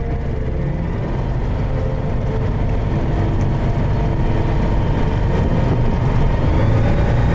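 JMB VL3 light aircraft's propeller engine heard from inside the cockpit, running steadily as the plane rolls along the uphill runway after touchdown, with rumble from the wheels; the sound gets gradually louder.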